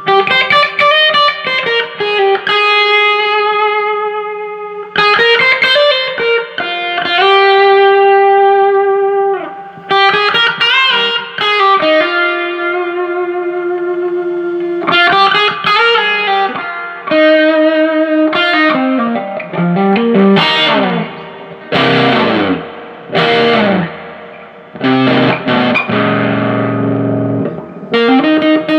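Electric guitar played through a Fender Hot Rod Deluxe tube combo amp, running on a freshly replaced pair of 6L6GC power tubes after repair. It plays sustained single-note lines with vibrato, then strummed chords near the end.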